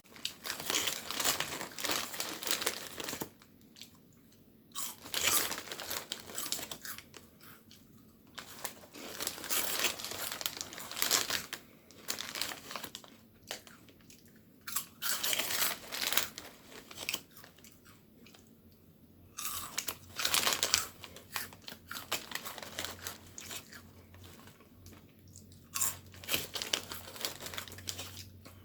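Cookies being bitten and chewed close to the microphone, crunching in bursts of a second or two with short pauses between them, mixed with the crinkling of a plastic wrapper.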